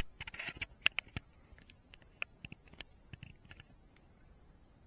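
Handling noise on a RunCam Thumb Pro action camera, picked up by its own microphone: irregular small clicks and rubbing as fingers touch and move the camera body. The clicks come thickest in the first second or so, then thin out.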